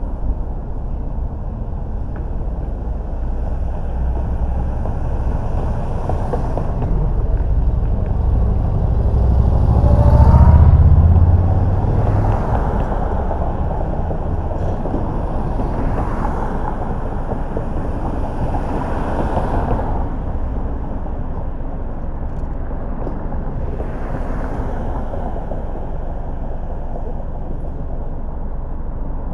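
Car driving through city streets: steady road and engine noise that swells to its loudest about ten seconds in, then settles back to a steady level.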